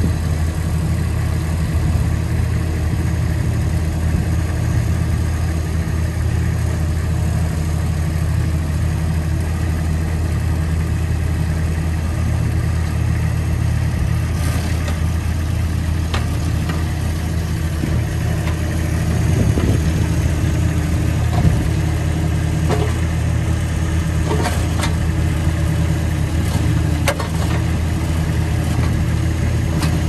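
Earth Force EF1D mini backhoe's diesel engine running steadily while the machine is driven, with a few short clicks and knocks in the second half.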